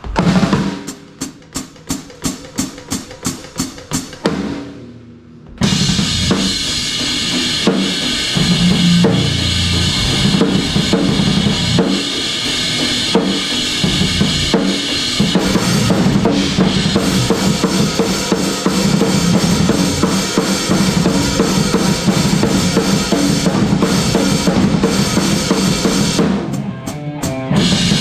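Rock drum kit playing with a band at practice. It opens with a steady count-in of sharp strokes about three a second, then a brief pause. About five seconds in, the full kit comes in with the band, kick, snare and cymbals driving along under sustained guitar and bass.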